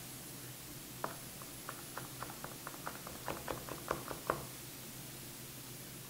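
Kitchen knife mincing garlic cloves on a cutting board: a run of light, quick taps starting about a second in and stopping a little past four seconds.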